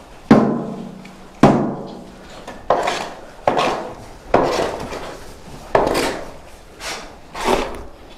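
A shovel scraping manure along the floor gutter beside pig pens: about eight strokes, roughly one a second. Each starts with a sharp knock and trails off in a scrape.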